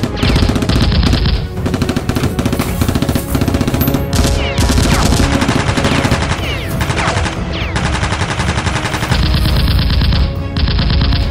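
Dubbed-in automatic gunfire sound effects: rapid continuous bursts of machine-gun fire with a few falling whines, laid over background music.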